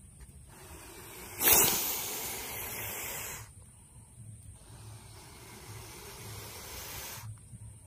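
Monitor lizard hissing: a loud, sudden hiss about a second and a half in that fades over a couple of seconds, then a fainter, longer hiss later on.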